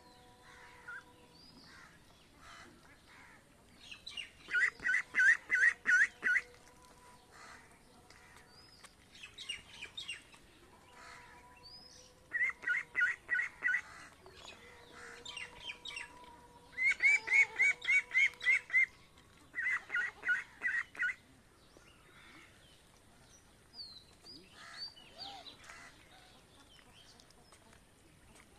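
Domestic ducks quacking in quick runs, four bursts of about a second and a half each, with fainter high chirps from the flock in between.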